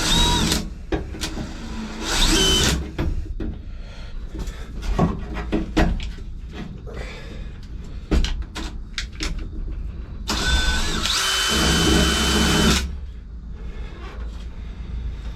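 Power drill boring out a spot weld in the sheet-metal cab support, in three bursts: briefly at the start, again about two seconds in, and a longer run of about two and a half seconds around ten seconds in, each with a high steady whine. Clicks and knocks come between the bursts.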